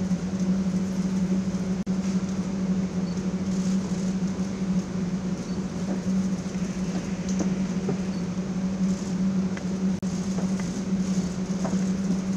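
A steady low mechanical hum over constant room noise, with a few faint clicks. The sound drops out for an instant twice, about two seconds in and again near ten seconds.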